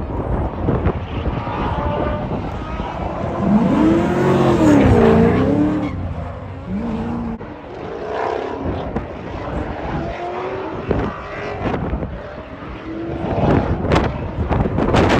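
Car engine revving, its pitch rising and falling a few times about four seconds in, over gusty wind buffeting the microphone.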